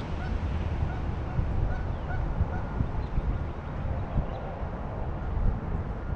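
Short bird calls repeating over a steady low rumble.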